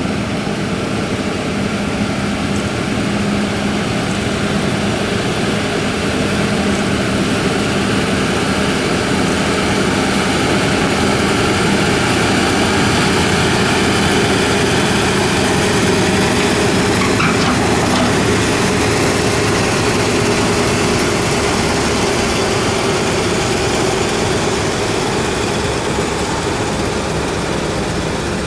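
Diesel engines of heavy Mercedes-Benz Actros tractor units running steadily under heavy load while hauling a transformer. The engine hum builds gently toward the middle and eases off slightly near the end.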